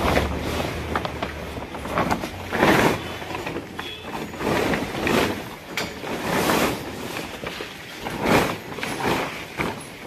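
White plastic tarpaulin rustling and crackling as it is pulled and spread by hand, in repeated loud swishes every second or two.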